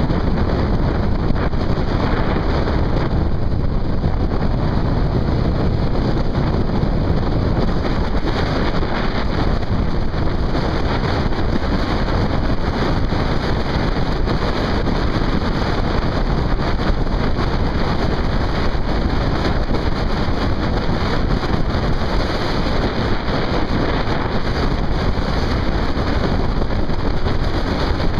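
Steady wind rush on the microphone of a camera moving at road speed, over the vehicle's running and road noise.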